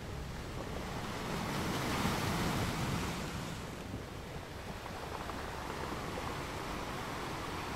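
Outdoor ambient rushing noise, heavy in the low end, swelling and easing slowly with no distinct events.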